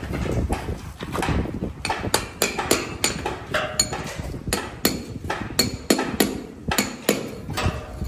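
Hammer blows on a building site: quick, irregular sharp knocks, several a second, some with a short metallic ring.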